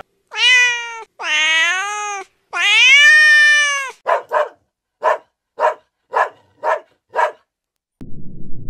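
A domestic cat meowing three times, each meow long and drawn out, followed by a puppy giving about seven short, high yaps. A low rushing noise comes in near the end.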